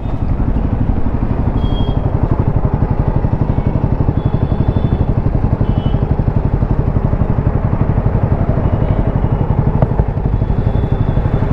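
Royal Enfield Himalayan 450's single-cylinder engine running steadily with a fast even pulse as the motorcycle is ridden.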